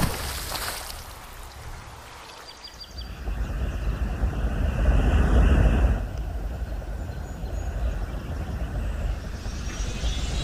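Sound effect of a rocket or missile engine: a rumbling rush of noise with a whistling tone, swelling about three seconds in and turning brighter and hissier near the end. It opens on the fading tail of an explosion.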